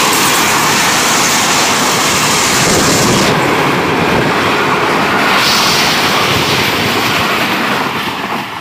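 Pakistan Railways Tezgam Express passenger coaches passing close at speed: a loud, steady rush and rattle of wheels on the rails. It eases off near the end as the last coaches go by.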